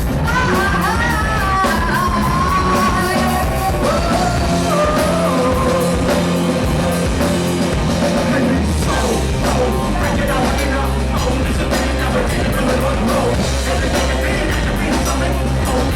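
A live rock band plays loudly, with vocals over drums and a heavy bass line. The bass gets fuller about halfway through.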